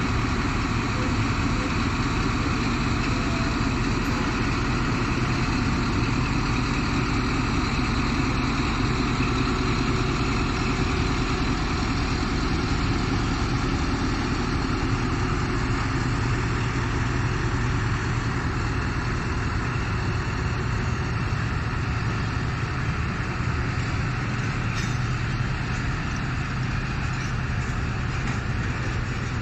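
Pakistan Railways diesel-electric locomotive's engine running with a steady low hum as it pulls slowly away past the platform, its passenger coaches starting to roll by near the end.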